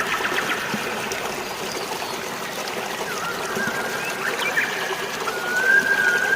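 Steady rush of running water with birds chirping over it in short, quick notes. About five seconds in, a high held whistle begins and carries on.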